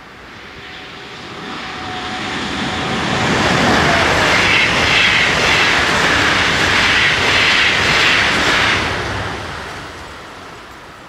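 Rhein-Ruhr-Express double-deck electric multiple unit (Siemens Desiro HC, two units coupled) passing the level crossing. Its wheel-on-rail and running noise swells over about three seconds, stays loud for about five, then fades away.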